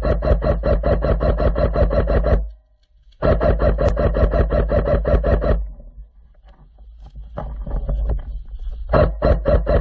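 Airsoft gun firing on full auto, about a dozen shots a second, in long bursts: a short break about two and a half seconds in, fainter fire in the middle, then another loud burst near the end.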